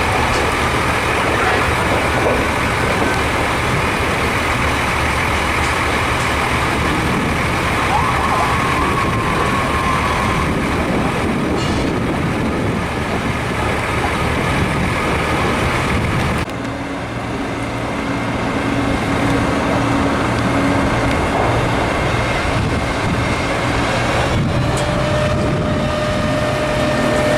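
Fire engines running steadily as a loud, dense rumble, with a siren wavering briefly about a third of the way in. The din drops suddenly about two-thirds of the way through and steadier tones come in.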